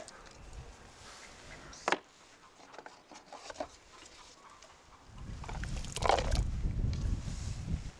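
Metal ladle working in an aluminium stockpot of bean-and-corn stew: a sharp clink about two seconds in and a few lighter knocks, then a louder, low rumbling stretch in the last three seconds as a ladleful is tipped into a paper bowl.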